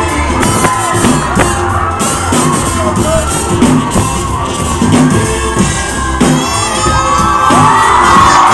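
Pop-punk band playing live through a club PA, loud drums and sung vocals, with the crowd shouting and whooping along, growing louder near the end.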